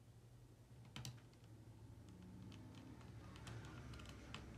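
Small, faint clicks and ticks of a precision screwdriver turning a screw in a laptop's metal hinge bracket, with one sharper click about a second in and a run of light ticks near the end.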